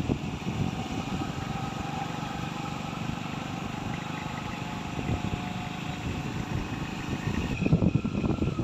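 Motorcycle engine running steadily while riding along a dirt road, with wind and road rumble on the microphone.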